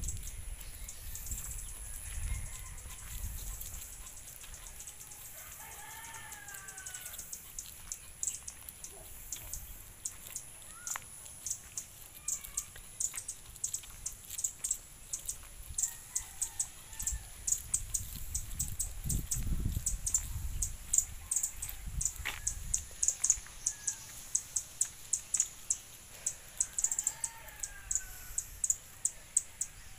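A rooster crowing, once about six seconds in and again near the end. Over the second half there is a regular run of short, sharp ticks, about two a second.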